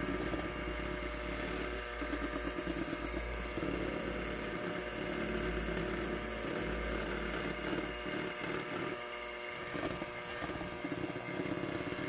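Electric hand mixer (Luxel) running steadily, whipping egg whites into meringue in a bowl; its low hum drops out about eight seconds in.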